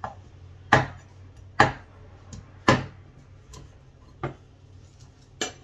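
Kitchen knife chopping fresh herb leaves on a thick wooden chopping board. About six sharp, irregularly spaced knocks come roughly a second apart, and the first three are the loudest.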